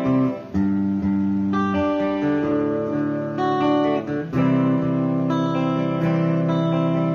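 Electric guitar with a clean amplified tone strumming sustained chords, changing chord about every one to two seconds.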